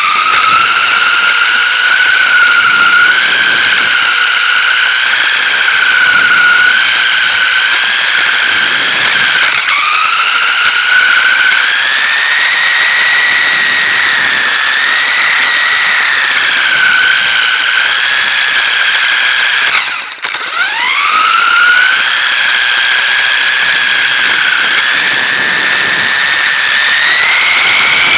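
Dromida DB418 RC buggy's electric motor and gears whining under throttle, a high whine that wavers in pitch with speed. About ten seconds in it dips and climbs again, and about twenty seconds in it cuts out briefly and sweeps back up as the car lets off and accelerates.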